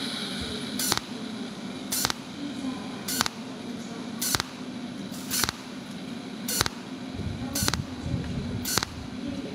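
Cold welding machine firing pulse spot welds along a crack in a red copper tube, eight short sharp snaps evenly spaced about once a second, with a steady low hum underneath.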